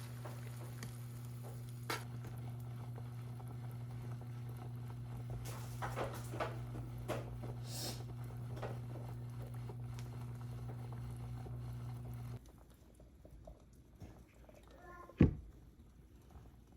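A steady low electric hum with scattered light clicks and taps over it; the hum cuts off suddenly about twelve seconds in, and a single sharp knock follows a few seconds later.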